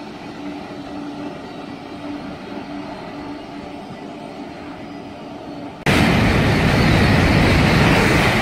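Light steady background hum, then about six seconds in a sudden loud rushing noise as a KTX-Sancheon high-speed train (SRT service) comes past, holding loud to the end.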